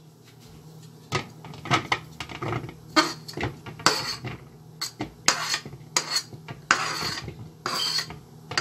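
Kitchen utensils clinking and scraping against dishes in short, irregular bursts, about one every half second to a second.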